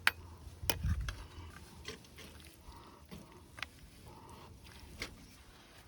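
A few scattered sharp clicks or knocks, the loudest right at the start, with faint soft sounds in between.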